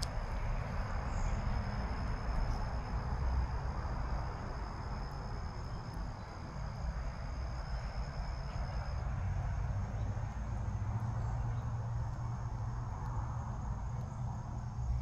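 Outdoor creekside ambience: insects trill steadily in high, thin tones, and some of them stop about nine seconds in. Under them runs a steady broad rushing noise with a low rumble.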